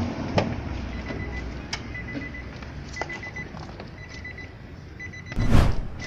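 Driver's door of a 2002 Nissan Pathfinder clicking open at the handle, then a person climbing into the driver's seat, with a loud thump about five and a half seconds in. A high electronic beep repeats in short bursts about once a second from about a second in.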